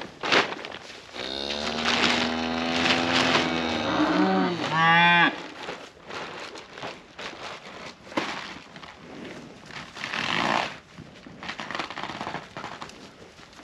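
A cow mooing: one long call of about four seconds that holds one pitch and then rises sharply at the end.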